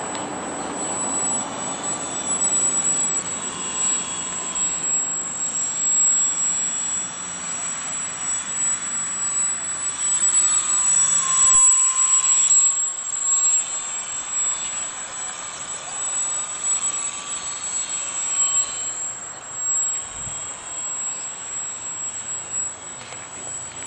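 Flatout Cap580 radio-controlled model plane in flight, its motor and propeller droning and whining, the pitch and loudness rising and falling as it throttles and passes. It is loudest about halfway through, as it goes by close overhead.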